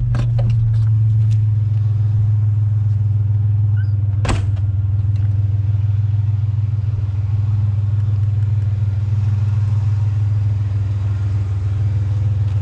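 Vehicle engine and road noise heard from inside the cab while driving: a steady low drone, with one sharp knock about four seconds in.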